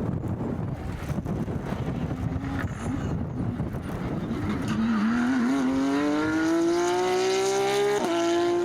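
Rally car engine under hard acceleration. After a rougher stretch, its note climbs steadily for about three seconds, then a quick upshift about eight seconds in drops the revs.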